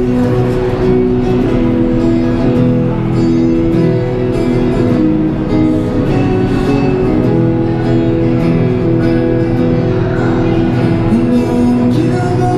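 Acoustic guitar playing a chord progression, with chords held and left ringing.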